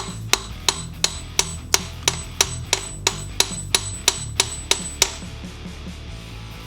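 Hammer striking metal in a steady run of blows, about three a second, each with a bright metallic ring; the blows stop about five seconds in.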